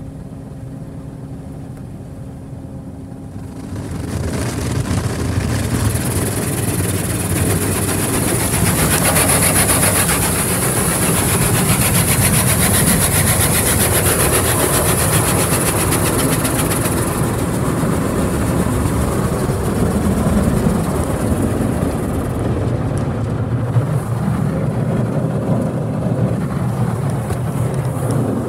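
D&S Odyssey soft-touch car wash heard from inside the car. A steady low hum gives way, about four seconds in, to loud water spray and spinning wash brushes against the car. A strong hiss of spray lasts about ten seconds, then eases into the lower churning of the brushes on the body.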